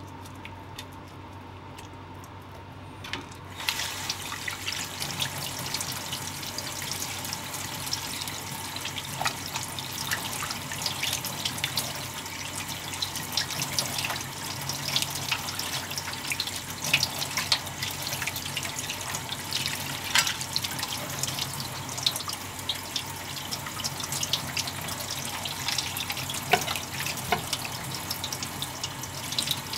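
Kitchen tap running onto a wet cutting board while a mirugai clam is rinsed by hand under the stream, with splashing and dripping. The water starts about three and a half seconds in, after a few quiet seconds.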